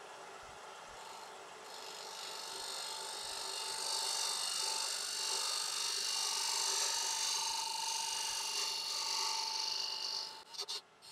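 Wood lathe running with a steady motor whine while a hand-held turning tool cuts the spinning tigerwood box blank. The hissing, rasping sound of the cut builds about two seconds in and stops near the end.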